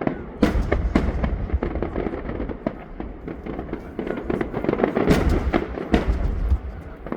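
Aerial fireworks going off: deep booms of shells bursting with sharp cracks and crackling in between. The heaviest bursts come about half a second in and again around five to six seconds in.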